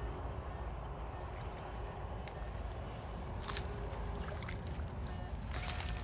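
Footsteps wading through wet grass and shallow water: a steady low rumbling noise with a thin high whine throughout, and a few sharp clicks, one about midway and a cluster near the end.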